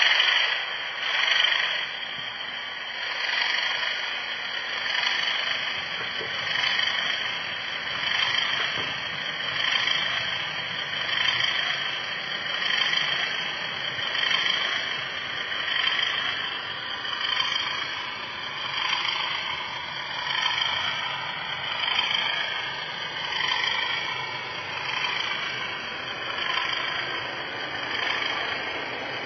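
Model train running along its track, heard from a camera riding on the train: a steady mechanical running noise that swells and fades about every second and a half.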